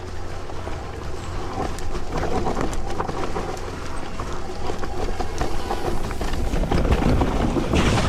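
Focus Sam2 6.8 e-mountain bike riding down a wet, leaf-covered forest trail: tyres rolling through leaf litter over hidden roots, with a steady low rumble and many quick rattles and knocks from the bike over the bumps, heaviest near the end.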